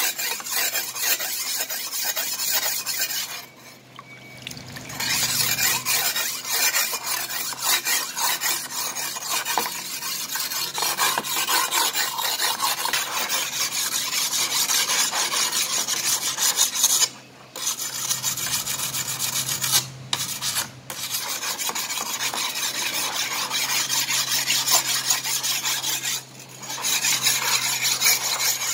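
Water-soaked oval sharpening stone stroked rapidly by hand along a steel sickle's edge: a fast, steady scraping that stops briefly a few times. The stone is honing the edge at about a 15-degree angle, first one side and then the other.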